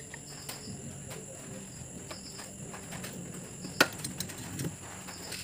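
Quiet bench-work handling sounds: small ticks and one sharp click about four seconds in, as the soldering iron is taken away from the board, over a steady high-pitched whine.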